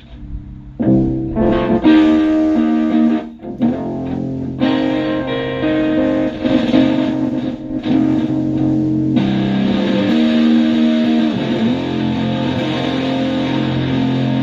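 Stratocaster electric guitar played through a Tone Bender MKII-style fuzz pedal into a Twin Reverb-style amp. Notes and chords ring out from about a second in, with a short break a little after three seconds and a fuller, held chord from about two-thirds of the way through.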